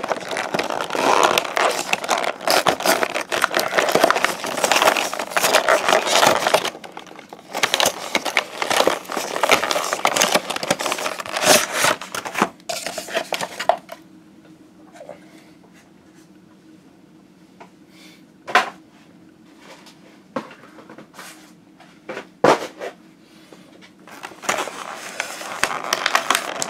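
Stiff clear plastic blister packaging crackling and scraping as it is handled and pulled out of a trading card box. A quieter stretch in the middle holds only a few sharp clicks before the crackling starts again near the end.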